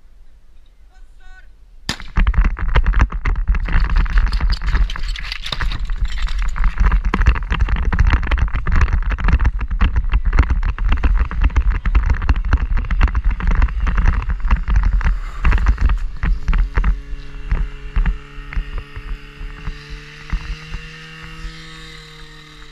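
Fire-sport attack run heard from a helmet camera: a sharp crack about two seconds in, then loud running noise with rapid footstep thumps and rushing air on the microphone. About sixteen seconds in, the running noise eases and a steady engine note comes through, rising slowly in pitch: the portable fire pump being revved up to push water into the hoses.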